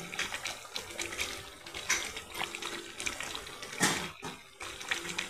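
A spatula stirring thin korma gravy in an aluminium pot: wet sloshing with scrapes and clicks against the pot, and a louder stroke near four seconds in.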